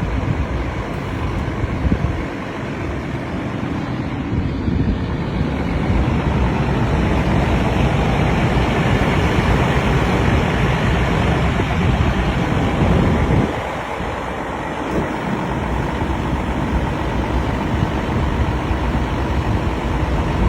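Demolition excavator's diesel engine running steadily, with a brief dip in loudness about two-thirds of the way through.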